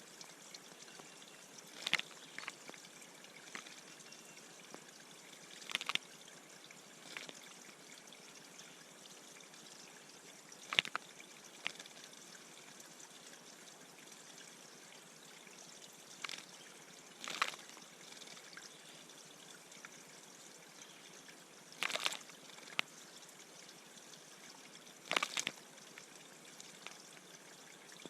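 Steady trickle of running water at a bird bath, broken by about half a dozen short, sharp sounds spread through the stretch.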